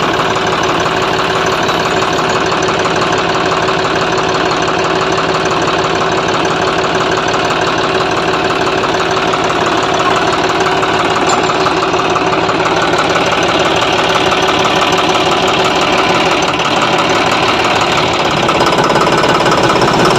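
John Deere 5405 tractor's three-cylinder diesel engine running steadily close by, a low regular diesel knock with no change in speed.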